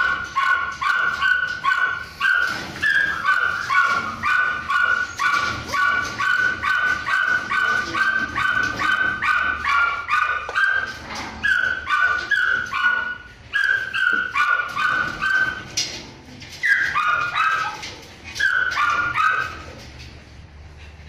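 High-pitched dog barking: a fast, even run of yaps, about three a second, that breaks up after about sixteen seconds into a few short bursts.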